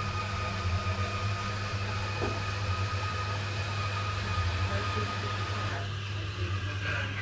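Steady indoor machine hum, low and constant, with a thin steady high whine over a light hiss. The hiss thins out about six seconds in.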